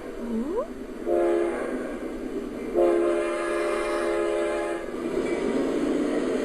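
Recorded train sound: a train rumbling along while its horn sounds a short blast about a second in and a longer blast of about two seconds near the middle.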